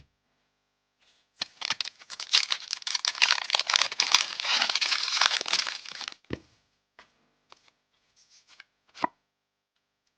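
A foil Pokémon booster pack wrapper being torn open, a crinkly tearing for about five seconds. A few soft handling clicks follow, with a sharper tap near the end.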